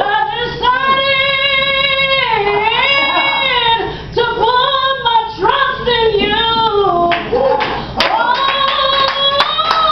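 A woman's solo voice singing a gospel song, holding long, wavering notes with rising and falling melody lines.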